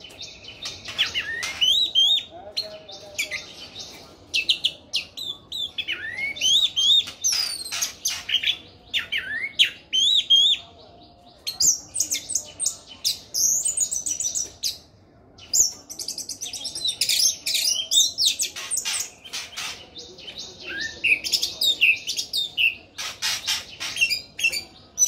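Caged orange-headed thrush singing a long, varied song of rapid whistled and chattering phrases with quick rising and falling notes, broken by a few short pauses.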